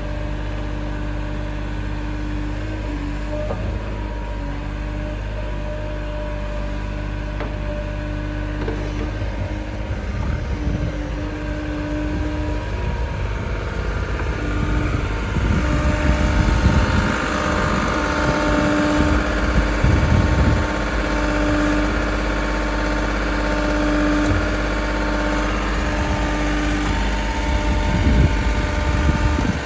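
JCB 60C-2 midi excavator's diesel engine running steadily at idle, turning rougher and louder from about ten seconds in, and louder again about sixteen seconds in.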